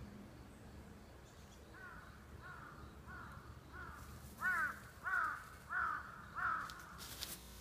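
A crow cawing: a series of about eight arched caws at an even pace, about three every two seconds, louder in the second half. A brief crackle comes near the end.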